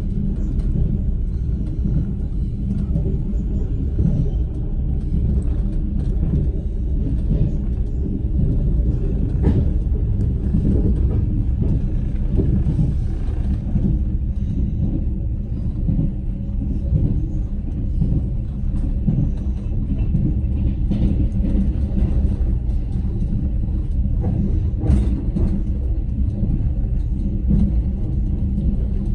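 Train wheels running on the rails: a steady low rumble, with two sharper knocks, one about ten seconds in and another about twenty-five seconds in.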